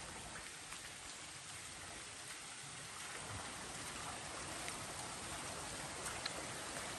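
Steady hiss of running water from a nearby stream, growing a little louder about three seconds in.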